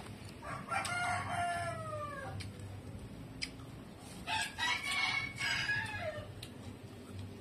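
A rooster crowing twice, about four seconds apart. Each crow lasts about two seconds and drops in pitch at the end.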